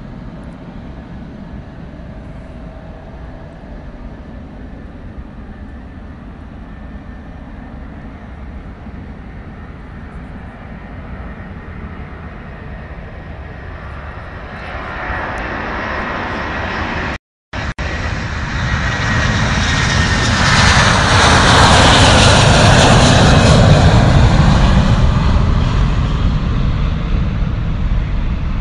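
A jet airliner's engines passing along the runway: a low, steady rumble for about the first half, then the engine noise swells up to a loud peak about two-thirds through and starts to fade near the end. The sound drops out for a split second about halfway through.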